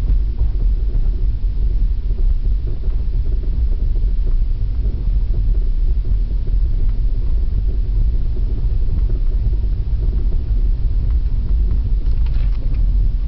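Steady low rumble from a 2001 Audi A6 2.8, carrying the weird noise from its front right wheel whose cause the owner does not know.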